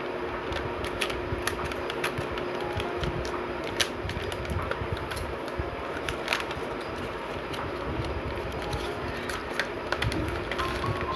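Gift packaging being handled and opened: scattered sharp clicks and crinkles over a low rumble, with one louder click a little before the middle.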